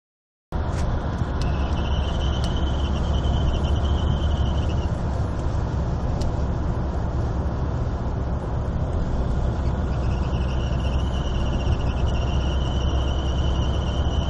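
Mercedes W203 C-Class CDI diesel engine running steadily, with a high-pitched chirp tone that holds for about three seconds, stops, then comes back near the end and holds again. The chirp goes away under acceleration.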